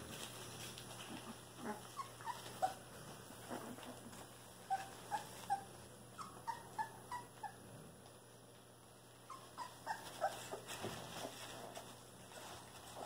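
Three-week-old Cane Corso puppies giving short, high squeaks and whimpers in scattered clusters of a few peeps at a time, over faint rustling in wood-shaving bedding.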